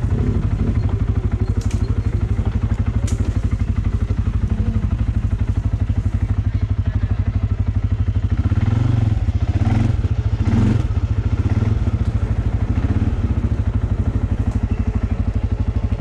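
CFMoto ATV engine running at low speed with a steady low pulsing note, getting louder for a few seconds around the middle.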